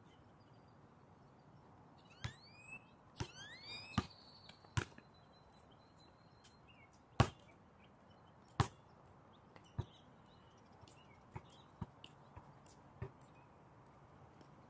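Basketball bouncing on an outdoor court: about a dozen sharp single bounces at uneven intervals, the loudest about seven and eight and a half seconds in, with a few short high squeaks two to four seconds in.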